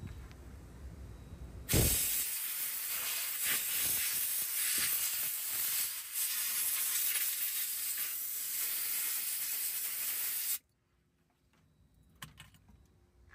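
A compressed-air blow gun blasting air into a car's trunk latch to clean it: a loud, steady hiss that starts suddenly about two seconds in and cuts off abruptly near the end.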